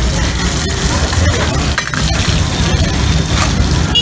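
Metal tongs clinking against small steel pans of frying eggs on gas burners. Under it runs a steady noisy hiss and a low rumble of street noise.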